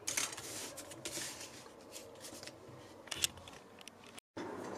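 Paper flyers, leaflets and cards being handled and shuffled on a desk: soft scattered rustling with light slaps and clicks of paper, stopping abruptly near the end.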